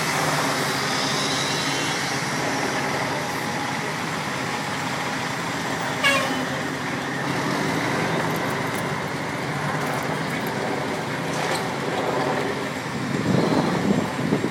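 Diesel fire engines and a ladder truck passing slowly one after another, their engines running steadily. A brief sharp sound cuts through about six seconds in, and a louder low rumble swells near the end.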